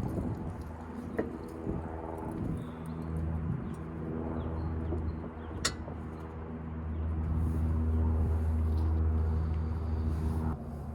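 An engine or motor running steadily with a low hum, louder in the second half and stopping shortly before the end, with one sharp click about halfway through.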